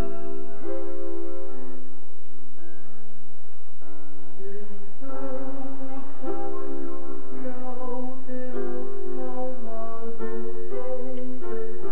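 Music: a vocal group singing with instrumental accompaniment, moving through held notes and changing chords.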